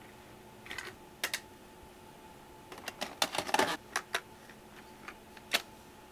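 Plastic clicks and clacks of a portable cassette recorder being handled, its cassette compartment and keys being worked: a dense cluster of clicks about three seconds in and a single sharp click near the end.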